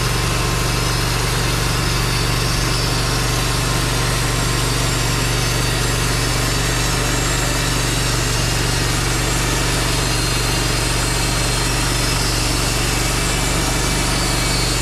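Wood-Mizer LT15 portable bandsaw mill's engine running steadily under load as the band blade saws lengthwise through a red oak cant.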